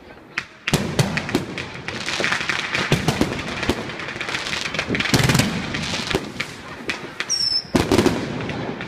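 Consumer fireworks going off: an irregular string of sharp bangs and crackling. A brief high whistle sounds just after seven seconds in, followed by a heavier bang.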